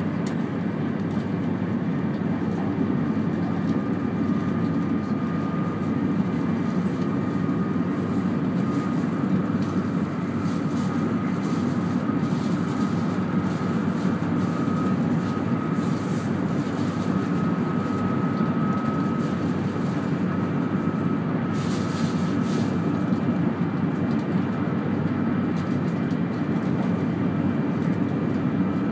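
Cabin noise of a 200 series Shinkansen train running at speed: a steady low rumble with a faint, steady high tone over it, and a brief hiss about 22 seconds in.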